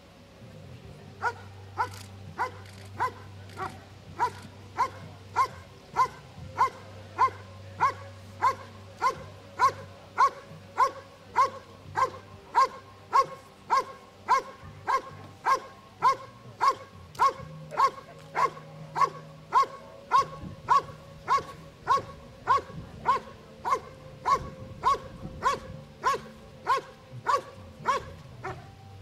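A dog barking in a steady rhythm at a sleeved helper standing at the blind, about two barks a second, starting about a second in. This is the hold-and-bark of a protection routine, where the dog holds the helper in place by barking.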